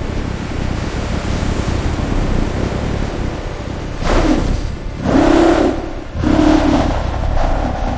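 An engine's steady low rumble, then four loud revving surges of about a second each, starting about four seconds in.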